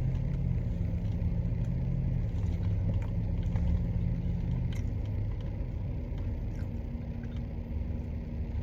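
Car engine idling with a steady low rumble, with a few faint clicks over it.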